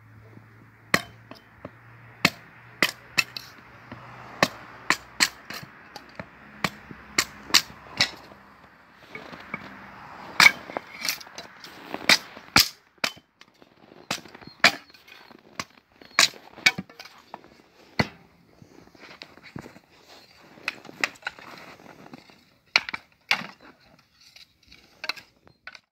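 Axe chopping firewood into kindling on a chopping block: a long run of sharp, irregularly spaced chops and cracks of splitting wood, some much louder than others.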